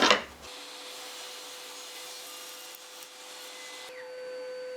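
Power saw running steadily, a hiss with a steady whine, while thin wood is pushed through it with pencils used as push sticks. About four seconds in the hiss thins and the whine grows a little louder.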